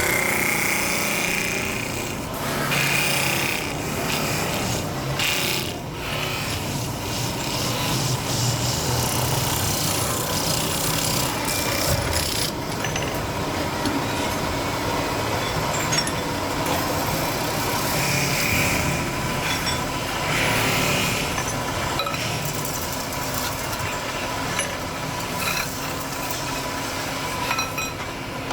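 Metalworking on kettle parts: continuous scraping and rasping with scattered sharp clicks.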